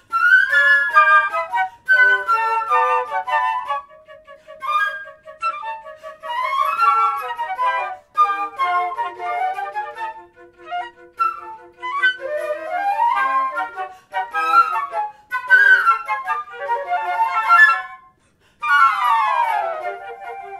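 A flute quartet playing a fast, energetic piece: quick runs and short detached notes over held lower notes. Near the end the playing stops briefly, then a falling run sweeps down.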